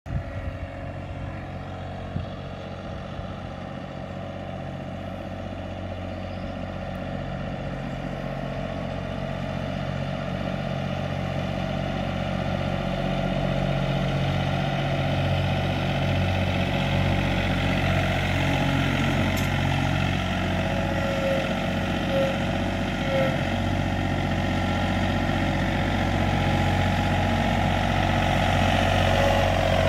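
John Deere 3025E compact tractor's three-cylinder diesel engine running as the tractor drives closer at low speed, growing steadily louder as it approaches.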